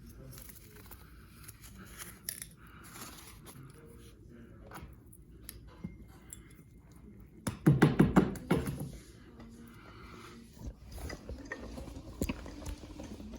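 Hand work on a carpet edge: quiet scraping and scuffing of carpet being trimmed and tucked in against the floor trim. About halfway through comes a loud burst of rapid knocks and crunching that lasts a second or so, then scattered clicks.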